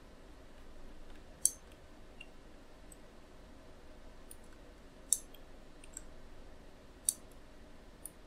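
Computer mouse clicking: three sharp clicks about two seconds apart, with a few fainter ticks between them, over a faint steady room hum.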